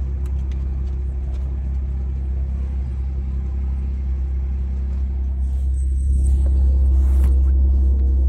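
Steady low rumble of a car heard from inside the cabin, with a faint even hum over it; it grows louder about six seconds in.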